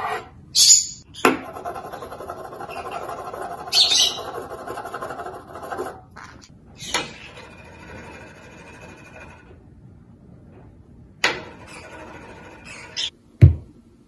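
Scattered sharp knocks and clatters on a wooden tabletop from a green-cheeked conure playing with a metal spoon, with a heavy thump near the end.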